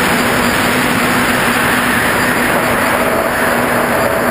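A DeadCat quadcopter's electric motors and propellers in flight, heard from the camera on board: a loud, steady rush of prop wash and wind with a faint hum underneath.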